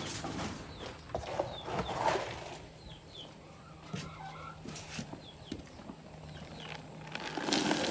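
Chickens clucking, with short high chirps scattered throughout. Two louder bouts of rustling, clattering noise come about a second in and again near the end.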